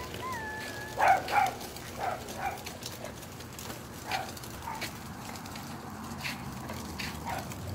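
A dog barking repeatedly, with two louder barks about a second in and fainter barks every second or so after. Two short chirps glide up and down just before the first barks.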